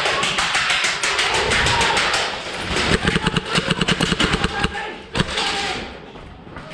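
Airsoft guns firing on full auto: fast, even trains of shots, about a dozen a second, in long bursts that stop just under five seconds in, followed by a single shot.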